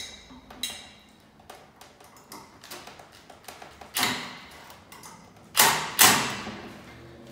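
Clicks and knocks of ceiling fan parts being handled and fitted by hand. Near the start come a couple of light metallic clicks, one with a brief ring. Then three louder knocks follow, one about four seconds in and two close together nearly six seconds in.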